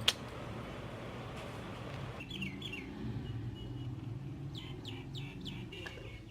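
A sharp click at the very start, then short high bird chirps, a couple about two and a half seconds in and a quick run near five seconds, over a low steady hum.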